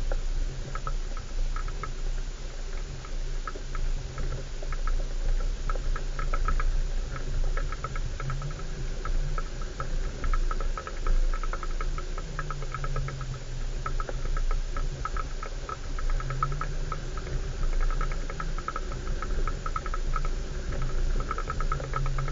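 A 4x4's engine running at low revs as it crawls along a rough, rutted track, its pitch lifting briefly a few times, with fast light rattling and clicking from the vehicle throughout.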